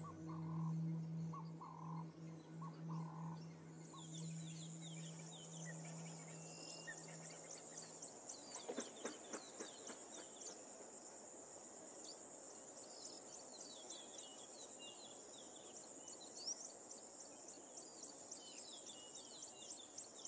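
Natural dusk ambience: a steady high-pitched insect trill with many scattered bird chirps, starting about four seconds in as a low, steady music drone fades away.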